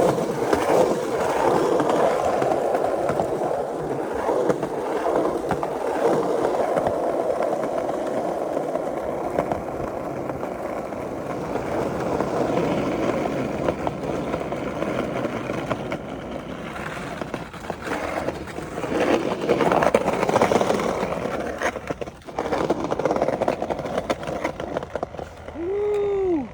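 Skateboard wheels rolling steadily over hard ground, with a few sharp clacks later on. Near the end there is a short tone that rises and falls.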